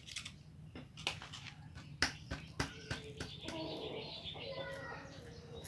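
A few sharp knocks and clicks of hand tools working on a manual transmission's casing as it is taken apart, with faint voices in the background in the second half.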